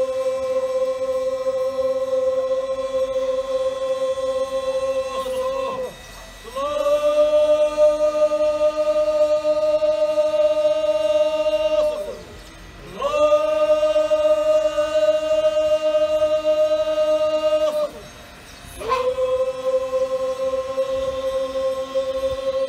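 A group of voices chanting in unison, holding long steady notes of about five to six seconds each, broken by short pauses, with each new note swooping up into pitch.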